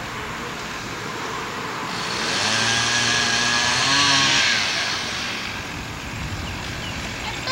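Chainsaw running, then revving up hard from about two to five seconds in, as in cutting wood, before dropping back.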